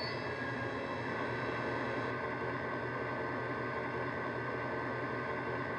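Model Class 68 diesel locomotive's LokSound 5 DCC sound decoder, running JMC's Class 68 sound file through an EM2 speaker, playing the diesel engine idling steadily with the loco at a standstill.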